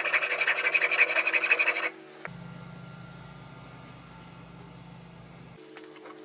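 A hand file rasps back and forth across the soft metal of an AR-15 rear sight aperture held in a vise, cutting a V-notch. The filing stops abruptly about two seconds in, leaving only a low steady hum.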